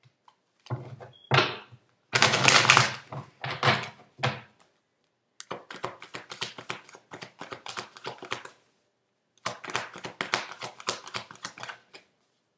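A deck of tarot cards being shuffled by hand: louder handling and rustling in the first few seconds, then two runs of quick, crisp card flicks.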